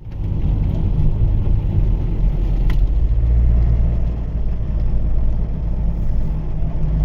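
Campervan driving on the road, heard from inside the cab: a steady low rumble of engine and road noise.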